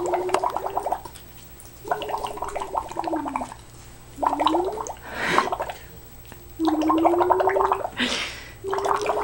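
A toddler humming into her drink through a sippy cup's spout, blowing bubbles so the hum comes out as a bubbling gargle. It comes in bursts of about a second, with short breaths in between.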